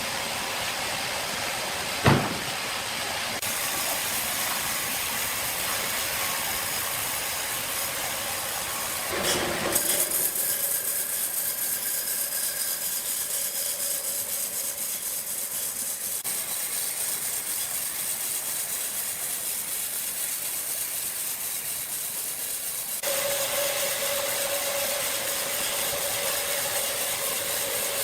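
Sawmill machinery running with a steady mechanical din, a sharp knock about two seconds in and a louder clatter near the middle. The noise changes abruptly a few times, and a steady hum is added near the end.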